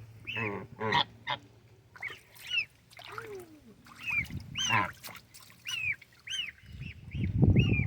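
Geese honking, many short calls one after another. A louder rushing noise comes in near the end.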